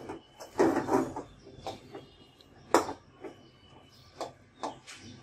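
A spatula scraping and knocking against a steel karahi as thick rice-flour dough is stirred, with a few sharp clicks, the loudest a little past the middle.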